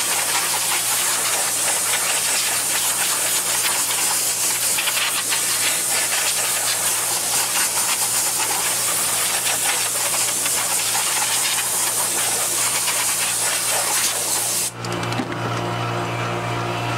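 Compressed-air blow gun hissing steadily as air is blown over a freshly vacuum-formed Kydex sheet to cool it. The hiss cuts off about fifteen seconds in, leaving a steady low hum.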